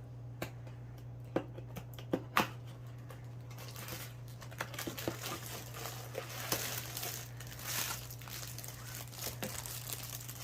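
A toy's packaging being opened by hand: a few sharp clicks and crackles at first, then steady crinkling and rustling from about four seconds in.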